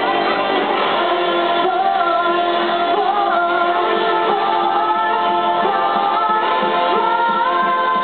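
A song: voices singing together over backing music, at a steady level throughout.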